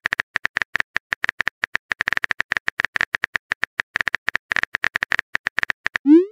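Keyboard-click typing sound effect of a texting-story app: a fast, even run of short clicks, several a second, one per letter typed. Near the end a short rising swoop begins, the app's message-send sound.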